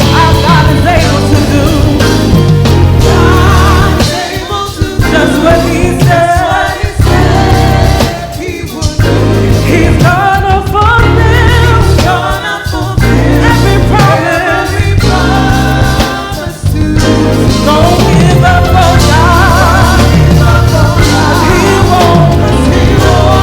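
Gospel group singing with a band over heavy bass, the music dropping out briefly several times.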